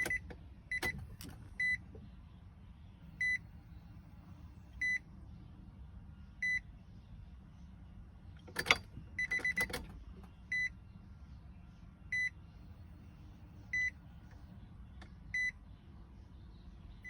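Car warning chime beeping at an even pace, one short high beep about every second and a half. A few sharp clicks come near the start and around the middle, the loudest about halfway through.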